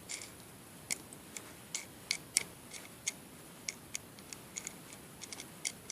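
Light, irregular metallic clicks and ticks of a wing nut being threaded by hand onto a small bolt through a bent strip of thin sheet metal.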